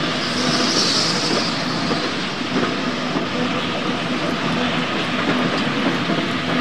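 HO-scale model freight train of tank wagons rolling along the track: a steady rolling noise, with a brief hiss about half a second in.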